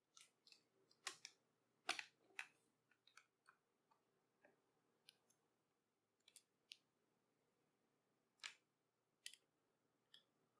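Faint, irregular clicks and taps of a small screwdriver and plastic and metal parts being handled inside an opened laptop, as the battery is disconnected and its mounting screws are undone; the loudest clicks come about a second in, about two seconds in and near the end.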